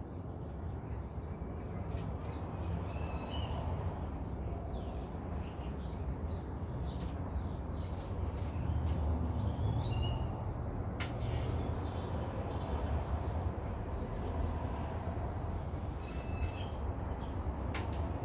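Birds calling and chirping in short scattered bursts, over a low steady rumble.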